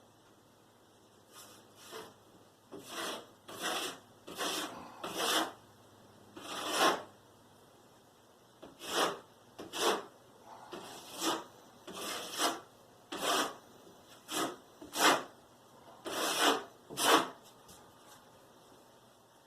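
Rasping strokes of a hand tool worked against drywall, about seventeen strokes at roughly one a second, with a pause of a second or two about seven seconds in.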